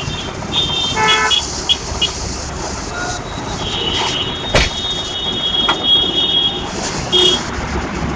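Street traffic with vehicle horns sounding: several short high-pitched toots in the first two seconds, one horn held for about three seconds in the middle, and another short toot near the end. There is also a sharp knock about four and a half seconds in.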